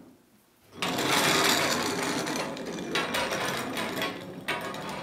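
Overhead trolley on a steel ceiling-beam track, moved by hand: a continuous metallic rattle and rumble with small clicks, starting about a second in and easing a little toward the end.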